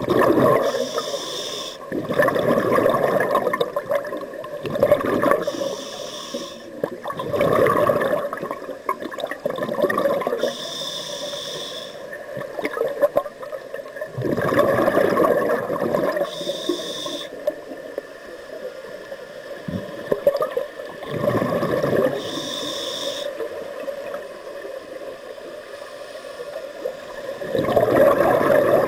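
Scuba diver breathing through a regulator underwater: each breath is a short hissing inhale followed by a longer, louder rush of bubbling exhaust, about five breaths at intervals of roughly five to six seconds.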